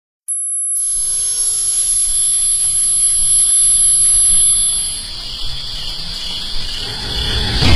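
A steady high-pitched buzzing drone with a thin, even higher whine over it, starting suddenly after a brief silence. A short wavering tone sounds about a second in, the whine stops about five seconds in, and a low rumble swells near the end.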